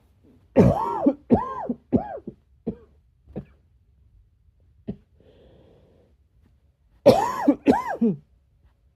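A person giving breathy coughs: a run of five quick coughs, each softer than the last, then a faint breath, then two more coughs near the end.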